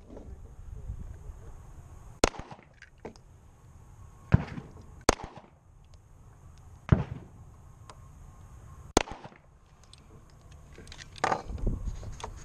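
Smith & Wesson M&P 40C pistol fired slowly, about five single shots roughly two seconds apart, while its red-dot optic is sighted in.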